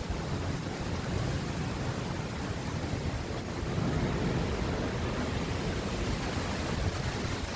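Thunderstorm noise: a steady rush of wind and rain, with wind buffeting the microphone as a low fluttering rumble that swells about four seconds in.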